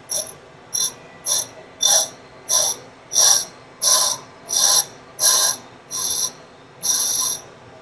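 Diamond dresser being passed back and forth across a spinning grinding wheel on a K.O. Lee tool and cutter grinder, truing it and dressing an angle onto it. About eleven high, hissing scrapes come roughly every two-thirds of a second, each a little longer than the one before, over the steady running of the grinder and dust collector.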